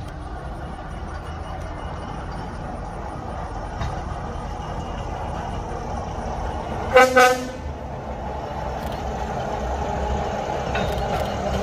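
GE 44-ton diesel locomotive with a single-chime horn, sounding two short horn blasts about seven seconds in, over the steady rumble of its engines, which grows louder as the train approaches.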